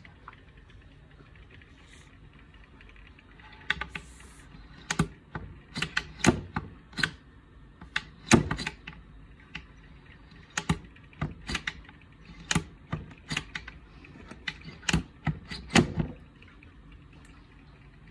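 A series of irregular sharp clicks and knocks, like small hard objects being handled and set down, from a few seconds in until near the end, over a faint steady background.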